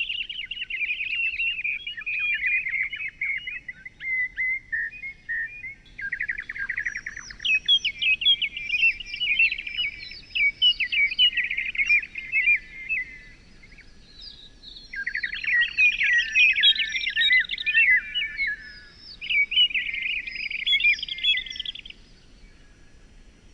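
Songbird singing in several long, rapid twittering phrases, separated by short pauses.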